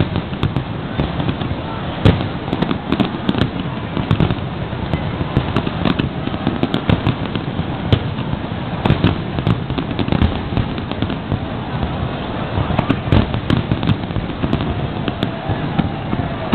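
Large aerial fireworks display: a dense, continuous run of bangs and crackling shell bursts over a steady rumble, with sharp reports every fraction of a second.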